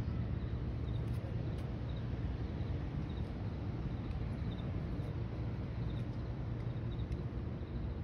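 Steady low ambient rumble of outdoor background noise, with faint, short, high chirps every second or so.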